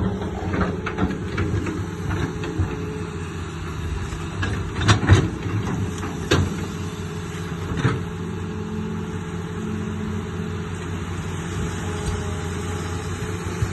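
Excavator's diesel engine running steadily, with a few sharp knocks standing out around the middle.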